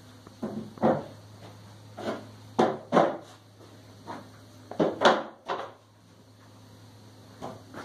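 Irregular wooden knocks and thumps, about nine in small clusters, over a steady low hum.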